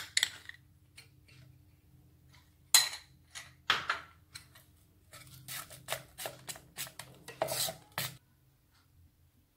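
Metal spoon scraping and clinking against a stainless steel bowl while stirring thick cake batter, in irregular strokes that come faster and closer together in the later seconds, then stop about eight seconds in.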